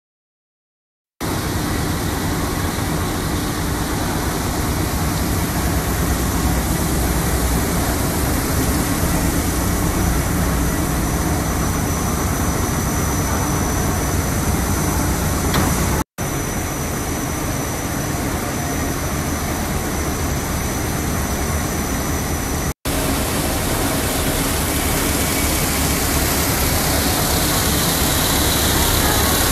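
Machinery of an artificial marble production line running: a steady, loud mechanical din with a low hum, starting about a second in and breaking off twice for a split second.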